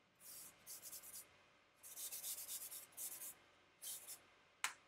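Charcoal scratching over sketchbook paper in five short shading strokes, the background being worked darker. A single sharp tap comes near the end.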